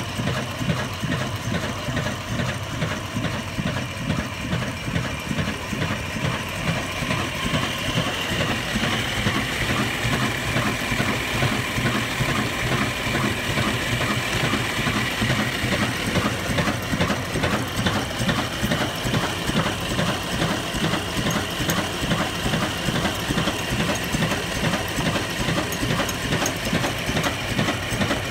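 Old 22 HP stationary diesel engine with a heavy flywheel running steadily, with an even, rapid beat.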